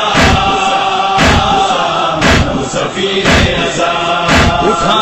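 A group of men chanting a noha in chorus, with unison matam (chest-beating) striking about once a second.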